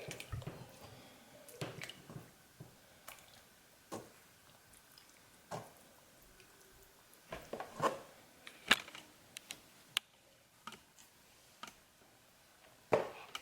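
About a dozen small knocks and clicks, spread out and separate, from handling a brine container and raw turkey pieces in a kitchen.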